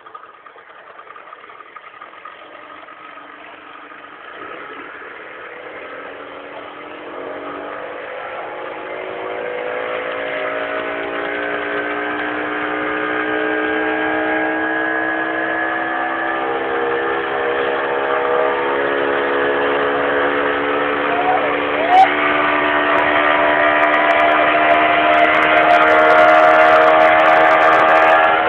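Boat motor running while the boat gets under way, growing steadily louder and slowly rising in pitch as it picks up speed, with one sharp click about three quarters of the way in.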